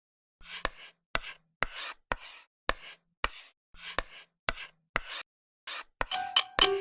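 A rhythmic series of short scraping strokes, each with a sharp tap, about two a second. Near the end, ringing metallic dings join in.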